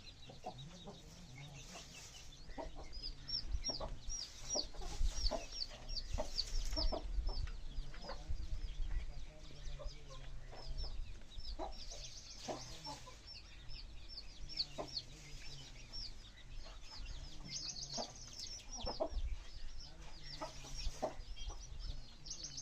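A flock of free-range chickens clucking, with rapid, high-pitched peeping repeating throughout.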